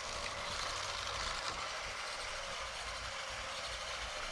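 SunFounder PiCar-4WD robot car's four small electric gear motors running as it drives across a concrete floor: a faint, steady whir.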